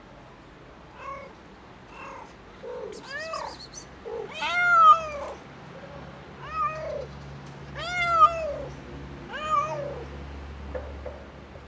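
Domestic cat meowing repeatedly, about eight or nine separate meows that each rise then fall in pitch, loudest about five seconds in.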